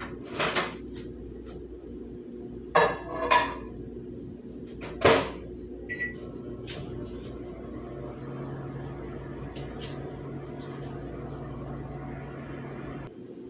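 A dish clattering into a microwave oven and the door shutting with a sharp knock, then a short keypad beep. The microwave starts running with a steady hum that cuts off near the end.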